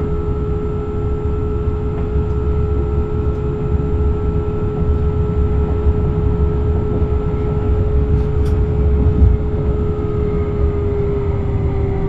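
Electric light-rail train running along the track: a continuous low rumble of wheels and rails with a steady whine over it, which dips slightly in pitch near the end.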